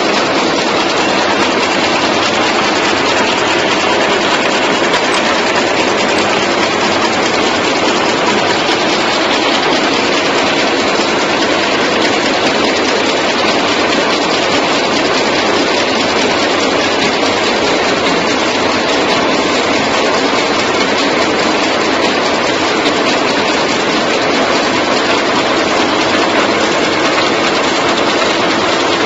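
Automatic chewing gum machine running at speed, a steady dense mechanical noise that keeps an even level throughout.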